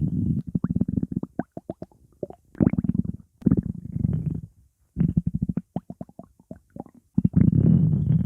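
Stomach growling: gurgling rumbles broken by quick bubbly pops, in several bouts with short pauses between them, the longest near the end.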